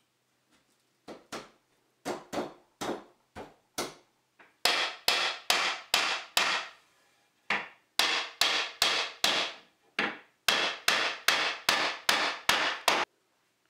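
Steel claw hammer striking a wooden block on the top rail of a pine frame, knocking the rail down onto its legs. About two dozen sharp wooden knocks: a few light taps first, then harder runs of about three blows a second with a short pause in the middle.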